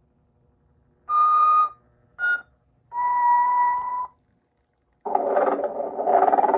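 Telco Motion-ette Sleeping Santa's sound unit whistling three steady notes, a short higher one between two longer ones, the last lowest and longest. About five seconds in, a loud raspy snore starts.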